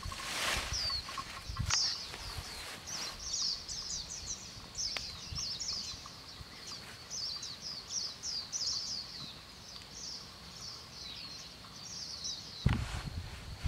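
Small birds chirping over and over in short, quick, falling high notes. Leafy branches rustle as they are handled in the first second, and again louder about a second before the end.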